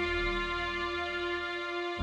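Background music: a steady held chord.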